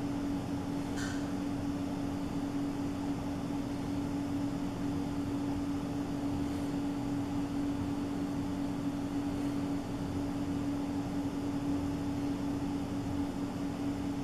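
Steady mechanical hum with one constant low tone, unchanging throughout, and a faint click about a second in.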